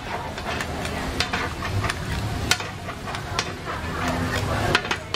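Metal spatula and ladle scraping and clanking against a large flat frying pan as noodles and bean sprouts are stir-fried, with a steady sizzle underneath. Sharp clanks come about once a second.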